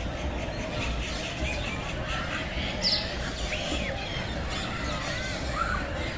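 Many birds chirping and squawking at once, with overlapping short calls and a louder downward-sweeping squawk about three seconds in.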